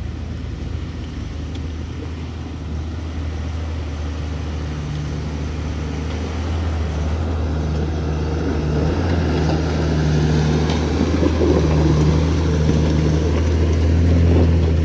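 Toyota LandCruiser 75-series diesel engine pulling under load on a rough off-road climb, a steady low drone that grows gradually louder.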